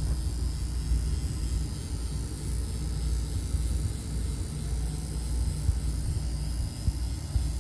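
Electrical breaker panel giving off a steady low hum.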